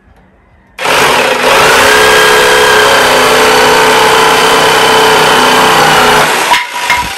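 Corded electric jigsaw cutting through a thin wooden stake, its motor starting about a second in and running steadily before stopping near the end, followed by a short knock.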